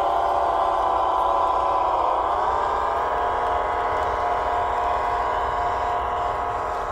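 Radio-controlled scale Fendt 1050 tractor running, a steady pitched mechanical whine that dips in pitch about two seconds in and then comes back up.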